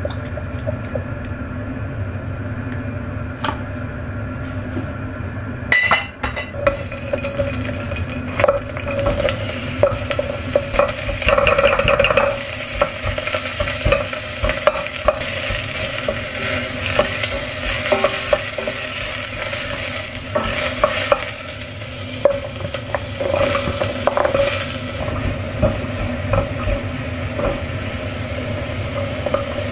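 Chopped vegetables sizzling in a stainless steel saucepan and being stirred with a wooden spatula, with scrapes and knocks against the pan. The sizzle sets in about six seconds in, over a steady low hum.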